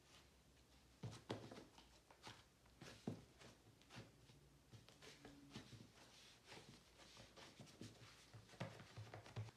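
Mostly near silence, with scattered faint taps and soft handling sounds from hands working slime and squeezing a glue tube on a tabletop; a small cluster of them near the end.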